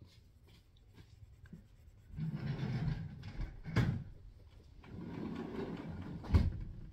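Two stretches of scrubbing or rubbing on a hard surface, each about a second and a half long and each followed by a sharp knock.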